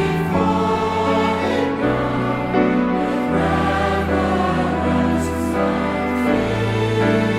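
Choral music: a choir singing sustained notes over a low bass line, the chords changing every second or two.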